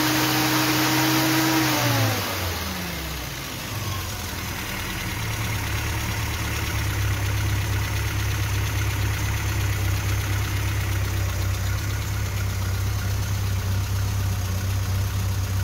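Classic Mini 1293 cc A-series engine, with a ported big-valve head, Kent 266 camshaft and RC40 exhaust, held at raised revs. About two seconds in the revs drop away, and the engine settles into a steady idle.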